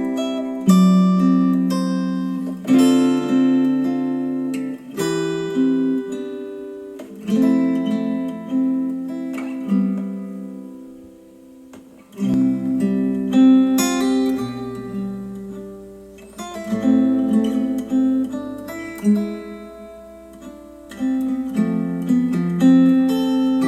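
Acoustic guitar music played back through hi-fi bookshelf speakers: strummed and plucked chords every second or two, each ringing and fading. About halfway the playing fades almost away, then resumes with a faint low hum underneath.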